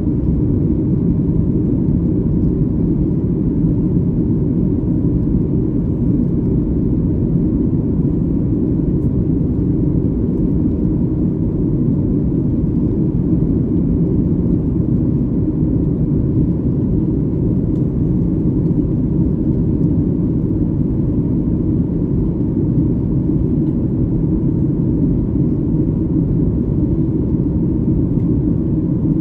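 Cabin noise inside a Boeing 737 MAX 8 in flight: a steady, even low rumble from its CFM LEAP-1B engines and the air around the fuselage.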